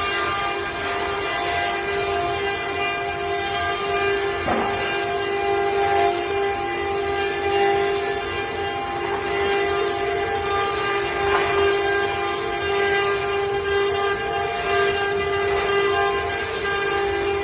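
CNC wood-carving router running, its spindle giving a steady whine over the noise of the bit cutting.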